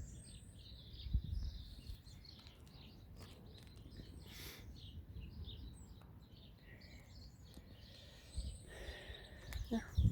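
Birds chirping and twittering in the background over a low rumble, with a few louder low thumps near the end.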